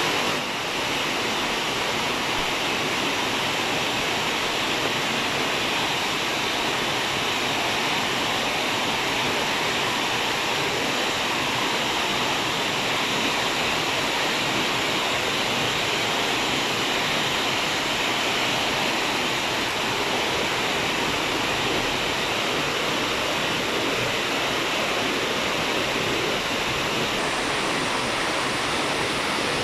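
Steady rain falling on trees and bushes, an even hiss.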